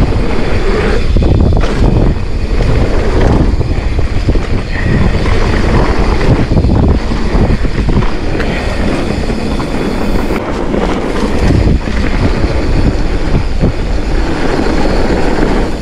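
Wind buffeting the ride camera's microphone, with a mountain bike rattling and knocking over rough dirt trail at speed.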